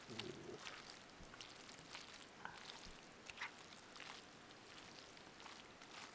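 Faint, irregular light taps and scrapes of a utensil mixing noodles in a pan, over a low steady hiss.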